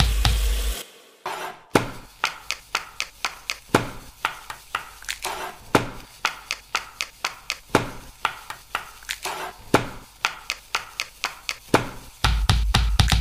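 Irregular sharp taps and slaps, about two or three a second, from hands handling a raw whole chicken. Background music with a beat plays briefly at the start and comes back about a second before the end.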